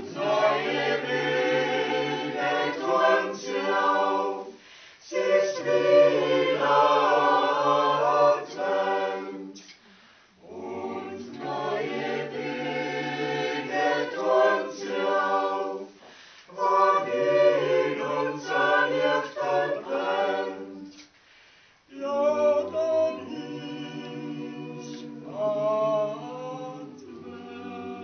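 Mixed church choir of men's and women's voices singing a Christmas song a cappella, in phrases separated by short breaths.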